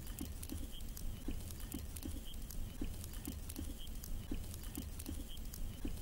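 Wood campfire crackling, with many small irregular pops over a steady low rumble.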